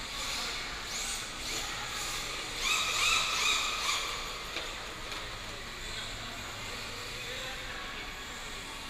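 Electric remote-control cars driving on a polished tile floor, their motors whining up in pitch as they accelerate. The whines come once about a second in, then several times in quick succession, loudest, as a pack of cars passes close between about two and four seconds in.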